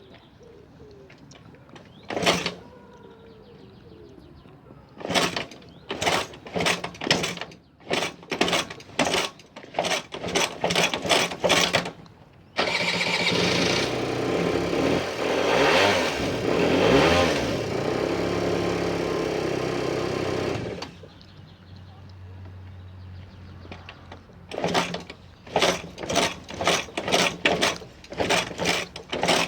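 Peugeot Jetforce scooter kick-starter worked over and over, roughly a kick and a half a second, with the engine not catching, which is the kick-start fault. In the middle the engine suddenly starts and runs steadily for about eight seconds, then cuts off. The kicking starts again near the end.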